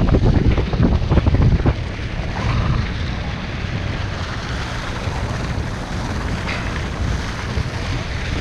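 Wind buffeting the microphone over the steady wash of sea water along a boat's hull. Louder and gustier for the first couple of seconds, then even.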